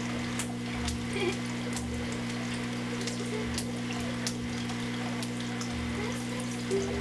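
Steady electrical hum and hiss with scattered crackling clicks, the noise of an old home-video tape recording; no clear sound from the scene itself.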